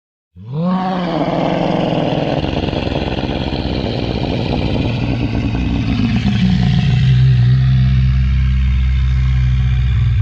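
Charonosaurus (a crested hadrosaur) call sound effect: one long, low bellow that begins about half a second in with a rising glide, holds, and settles lower in pitch around the middle.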